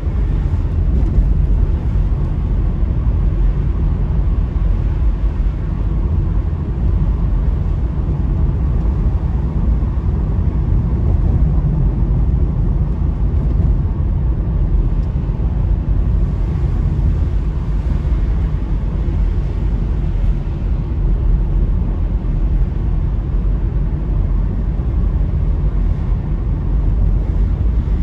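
Steady low rumble of a car driving, heard from inside the cabin: engine and tyre noise on a wet road.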